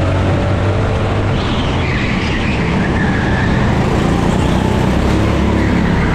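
A 9 hp Pilotkart rental kart engine running hard at race pace, heard from on board the kart. The engine note holds steady, shifting only slightly in pitch.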